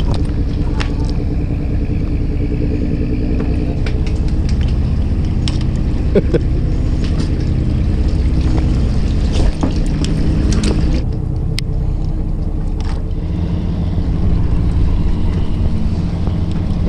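Fishing boat's engine running steadily as a low rumble, with a few light clicks and knocks on deck.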